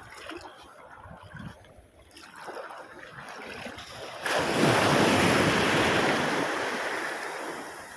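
Sea surf: quiet sloshing water, then about four seconds in a wave rushes in with a sudden loud hiss of water that slowly fades over the next three seconds.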